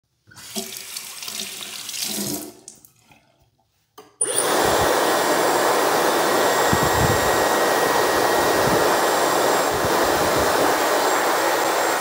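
A tap runs briefly as hands are rinsed. Then, after a click about four seconds in, a Dyson Supersonic hair dryer blows steadily onto the hands: a loud rush of air with a thin high whine over it.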